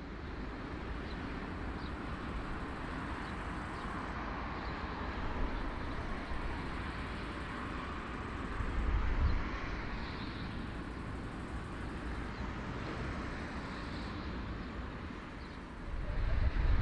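Jet engines of a four-engined Airbus A340 airliner taxiing, a steady rushing drone with a low rumble of wind on the microphone. It swells about nine seconds in and again near the end.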